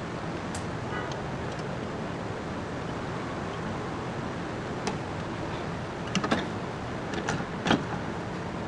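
Steady background hiss with several sharp clicks and knocks: a single one about five seconds in, a quick cluster about a second later, and the loudest near the end.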